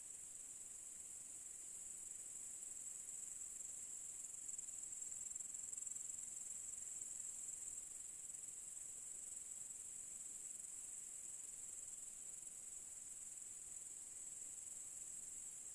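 A chorus of crickets chirring without a break, a steady high-pitched drone.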